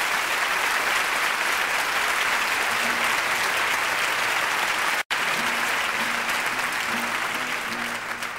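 Concert audience applauding at the end of a song, the applause thinning toward the end. A guitar starts picking quiet notes underneath in the second half, and the sound cuts out for an instant about five seconds in.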